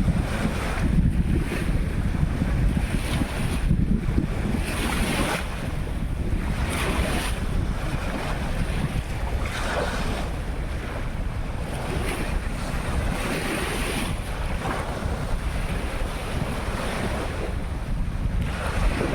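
Sea of Azov waves breaking and washing onto the beach in repeated uneven surges, with wind buffeting the microphone underneath.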